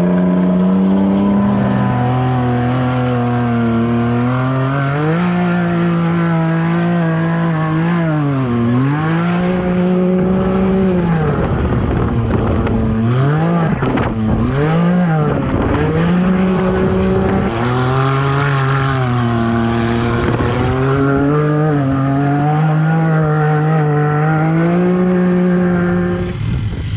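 Side-by-side UTV engine revving hard, its pitch holding high and dropping sharply several times as the throttle is let off and opened again, with three quick dips in a row near the middle.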